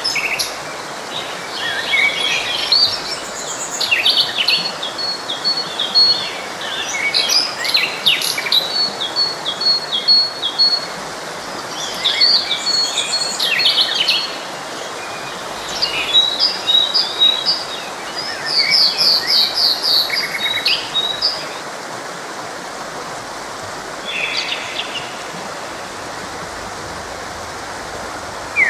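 Several songbirds singing and chirping, with quick trills of repeated notes, over the steady rush of a forest stream. The birdsong falls away for the last several seconds, leaving mostly the running water with a single short call.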